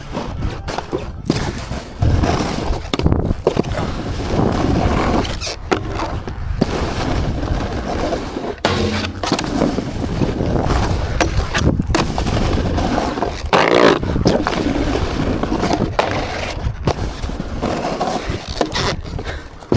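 Skis or a snowboard sliding and carving over packed snow, a continuous rushing scrape broken by sharp knocks and scrapes of the edges.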